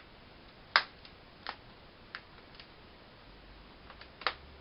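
Plastic laptop screen bezel popping and clicking as it is squeezed into place by hand, its clips snapping in as it seats, which is normal. Six or so separate sharp clicks; the loudest comes just under a second in and another near the end.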